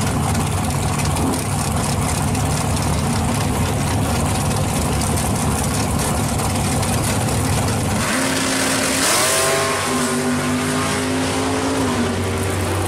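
Chevrolet G-body drag car's engine idling with a steady rumble on the starting line. About eight seconds in it launches and accelerates away, its pitch rising, levelling off, then climbing again.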